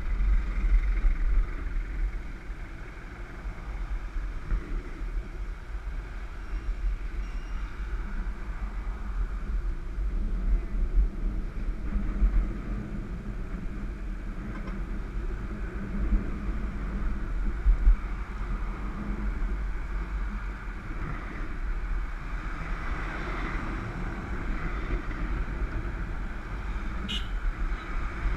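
Wind rumbling on the microphone of a camera carried on a moving road bicycle, over a steady rush of road and passing traffic noise, with a few louder gusts. A brief high chirp sounds near the end.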